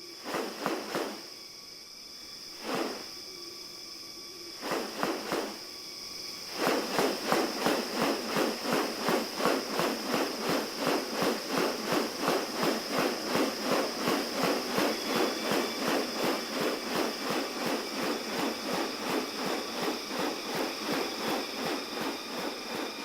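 Rainforest ambience: a steady high-pitched insect drone, with a few separate pulsing bursts at first, then from about six seconds in an even, rhythmic pulsing at about three beats a second.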